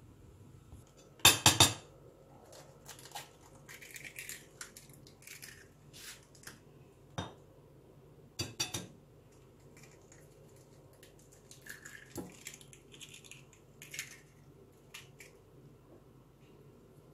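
Clinks and knocks of crockery and cutlery on a stone counter as eggs are cracked into a ceramic plate. A loud clatter of dishes comes about a second in, and a quick double knock about eight and a half seconds in, with lighter taps and clicks between.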